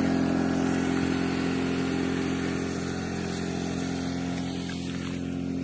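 A small engine running steadily at an even idle, its low hum holding one pitch throughout.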